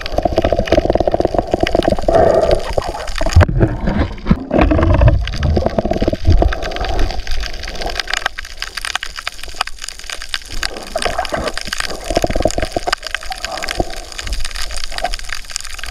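Water heard underwater, muffled through the camera housing: sloshing and bubbling, loudest in the first few seconds, over a dense, constant crackle of tiny clicks.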